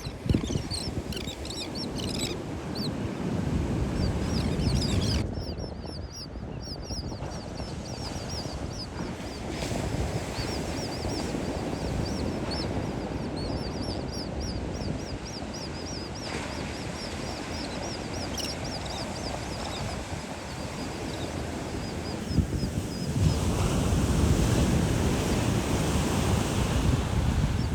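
Terns calling in quick runs of short, high, harsh notes over a steady low rush of wind and surf, which swells near the end.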